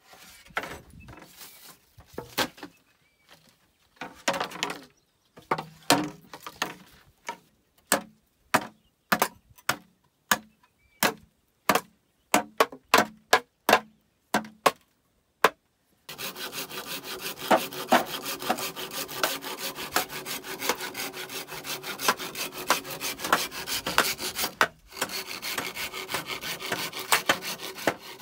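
Sharp knocks of a hand tool striking bamboo, one or two a second. About halfway through they give way to the steady, fast rasp of a hand saw cutting through bamboo.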